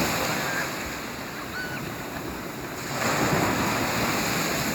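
Sea waves washing in on the shore: one surge fading away over the first second or so, and another rising about three seconds in.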